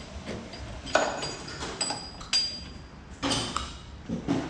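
Metal hand tools clinking and knocking against metal: four or so separate sharp clinks, some ringing briefly.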